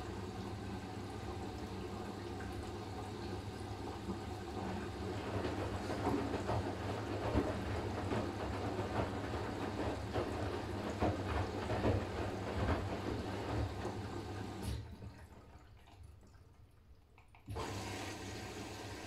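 Siemens iQ500 front-loading washing machine mid-cycle: water rushing and gurgling inside the machine over a low, steady hum. The sound grows busier midway, stops for about three seconds near the end, then starts again.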